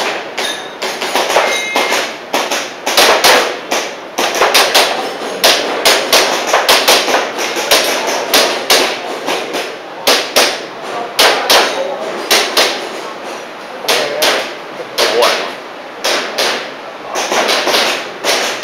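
Airsoft pistol firing many sharp shots in quick strings, several a second, with short pauses between the strings.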